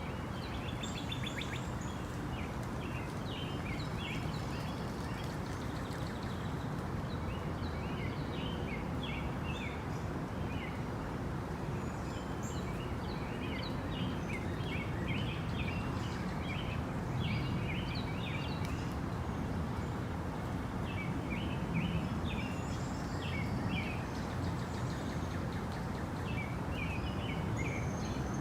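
Tropical rainforest ambience: a steady, even rush of background noise with many short bird chirps and calls scattered throughout, a few higher-pitched calls among them.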